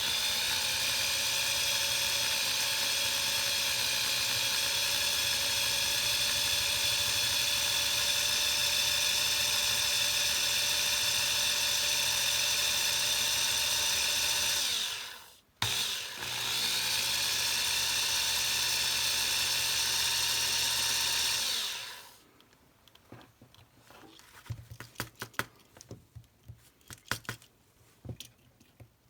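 Electric drill with a 9/64-inch bit running steadily while drilling out the rivet of a die-cast toy car. It stops briefly about 15 seconds in, runs again for about six seconds, then stops, leaving only faint light clicks of handling.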